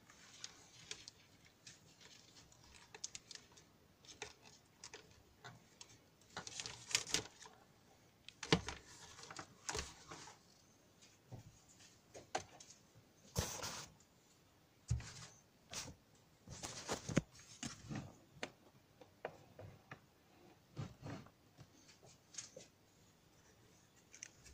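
Handling noise: irregular clicks, taps and short rustles of small objects being moved about, a few of them sharper and louder than the rest.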